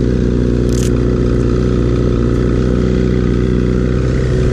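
Motorcycle engine idling steadily. Under a second in, a short scratchy rustle, as a riding glove is pulled on.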